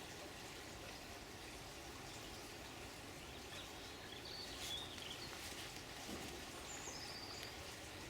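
Faint running water with a steady rush, and a few short, high bird chirps about halfway through and again near the end.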